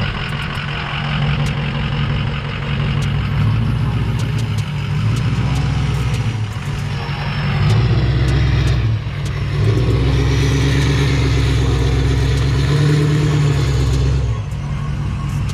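Ford F-250 pickup's diesel engine running, its revs rising and falling a few times.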